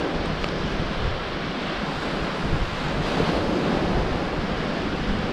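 Sea surf washing onto the beach, with wind rumbling on the microphone; a wave swells up a little louder about three seconds in.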